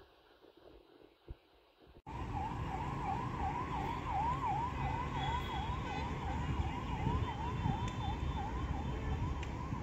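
ALCO WDM-3A diesel locomotive's 16-cylinder engine running loudly close by, starting suddenly about two seconds in. Over it a siren warbles rapidly up and down, about two to three sweeps a second, weakening near the end.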